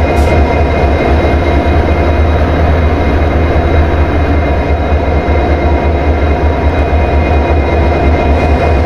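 Train running: a loud, steady rumble with faint steady tones above it, unbroken throughout.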